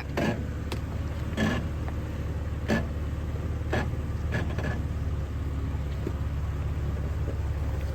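Off-road vehicle's engine running low and steady as it crawls down over rocks on a trail, with a few sharp knocks in the first half from the vehicle meeting the rocks.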